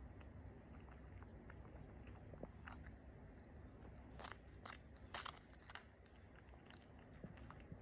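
A cat biting and crunching a round butter cracker: faint small crunches throughout, with a cluster of louder bites about four to five and a half seconds in.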